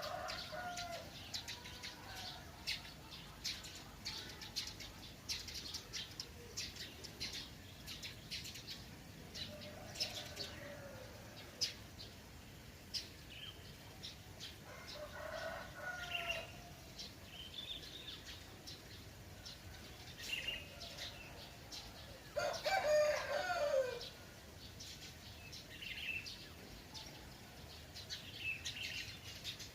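Roosters crowing a few times, the loudest and longest crow about three-quarters of the way in, over many quick chirps of small songbirds that are thick at first and sparser later.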